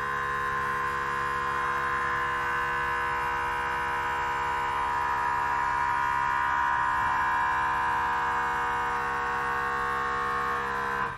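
Air Lift WirelessAIR air suspension compressor running steadily, a constant whine, as it inflates the truck's air helper springs toward 20 psi. It cuts off abruptly at the very end as the set pressure is reached.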